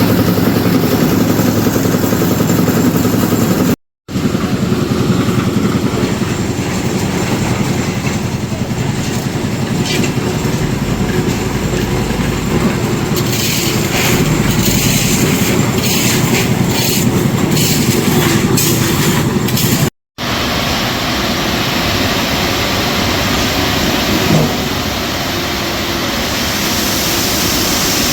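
Construction machinery engine running steadily with a clattering, rumbling noise, the sound of site machines at work during a concrete roof-slab pour. It cuts out briefly twice, about four seconds in and again near twenty seconds.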